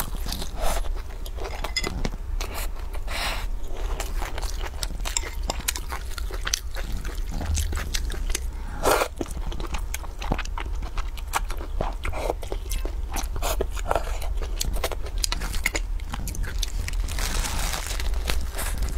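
Close-miked eating with no talk: biting and chewing a crispy layered flatbread, full of crunches, crackles and wet mouth clicks, with glass noodles slurped from a spicy broth about halfway through. The plastic wrap around the bread rustles near the end, over a steady low hum.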